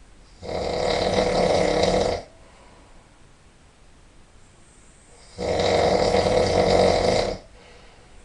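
A person snoring really loud: two long snores, each lasting about two seconds, some five seconds apart.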